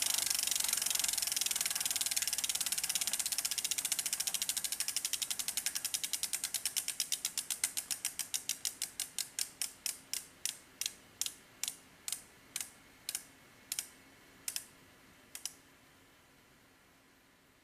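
Spinning bicycle wheel coasting to a stop, its freewheel hub ratcheting: the clicks come so fast they first blur into a buzz, then slow into separate, evenly slowing clicks, the last ones about two-thirds of a second apart, and fade out.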